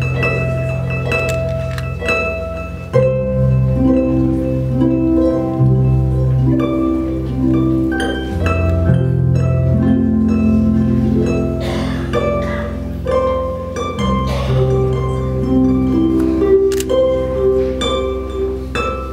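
Lyon and Healy concert grand pedal harp played solo through effects: plucked notes ringing and changing every second or two over a sustained low drone.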